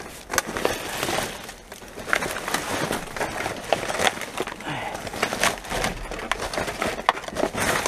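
Hands rummaging through rubbish in a dumpster: plastic bin bags rustling and crinkling, with many light clatters and knocks as paper cups, bottles and packaging are shifted about.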